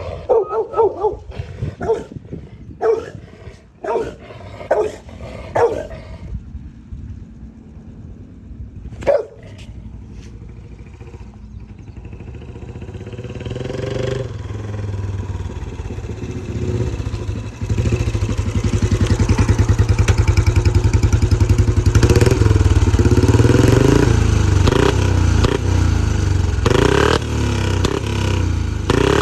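Single-cylinder Royal Enfield Bullet engine running through a Mahindra tractor silencer. Several short sharp bursts come in the first few seconds, then it settles to a quieter idle and revs up from about the middle, running loud and steady with a heavy thudding beat near the end.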